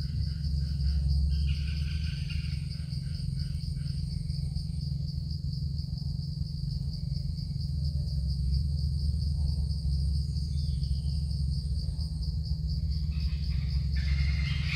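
Crickets trilling steadily in a continuous high, finely pulsing chorus over a steady low rumble. About two seconds in, a lower pulsing call joins for a couple of seconds.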